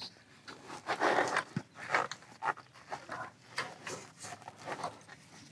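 Faint, irregular metal clicks and scrapes from a T30 Torx bit on an extension turning the tight retaining screw of a VANOS exhaust solenoid as the screw is broken free.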